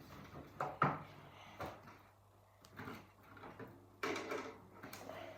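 A few short knocks and scrapes as Play-Doh and its pieces are handled, with a longer rustling stretch about four seconds in.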